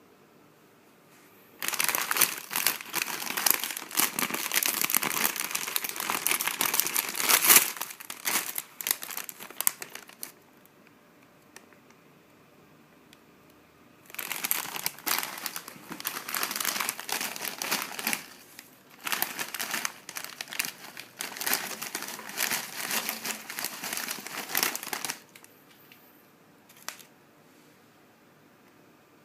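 Smith's potato chip packet crinkling loudly as it is handled, in two long stretches with a pause between.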